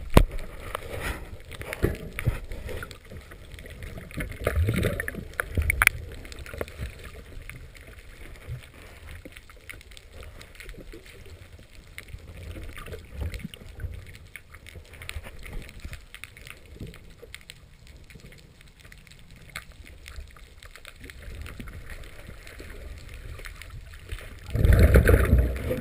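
Underwater sound picked up by an action camera: irregular water sloshing and gurgling with scattered clicks and knocks, and a louder burst of water noise near the end.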